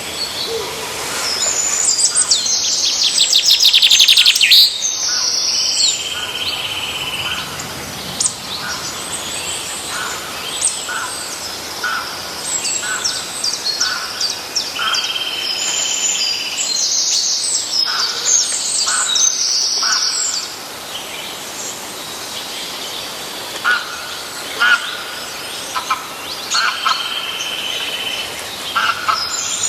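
Songbirds singing: repeated high warbling phrases with fast trills, a held whistled note every several seconds, and short chirps throughout.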